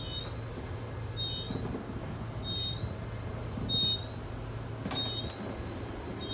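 Door-open beeper of a Queensland Rail New Generation Rollingstock train sounding while the doors stand open at a station: a short, high beep about every second and a quarter. Under it runs the carriage's steady low hum, with a click about five seconds in.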